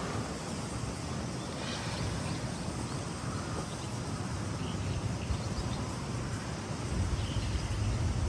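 Strong wind blowing and buffeting the microphone, a steady rush with a low rumble that grows heavier as a gust comes through about seven seconds in.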